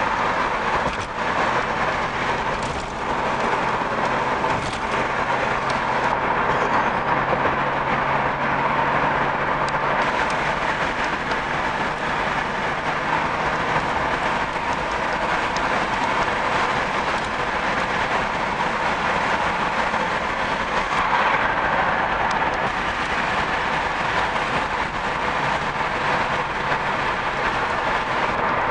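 Steady road and engine noise of a moving car heard from inside the cabin, with a low engine hum under it for the first half.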